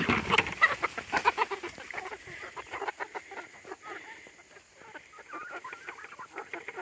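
A flock of backyard chickens clucking and pecking in wood-chip compost. A thump right at the start is a bucket of rotten pears landing on the pile.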